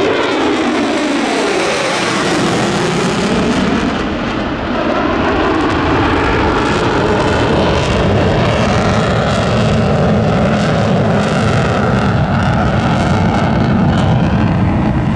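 Military jet flying a low pass: its pitch falls as it goes by at the start, then a loud, steady jet roar holds.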